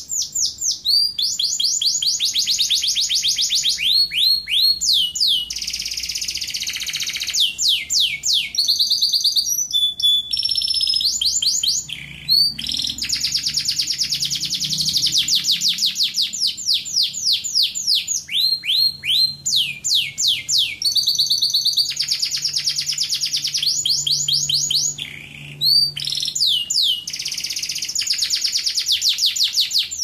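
Domestic canary singing a long song of rapid trills: runs of fast, repeated high chirps whose speed changes from one run to the next, with short breaks between runs.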